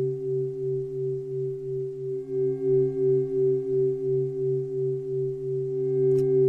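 Background meditation drone: several steady low tones held together, swelling and fading in volume about twice a second, in the manner of a singing bowl. Fainter higher tones join about two seconds in.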